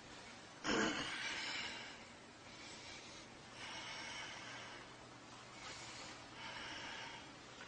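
A man breathing hard through the nose and mouth. There is one loud, forceful breath about a second in, then four softer ones spaced a second or two apart.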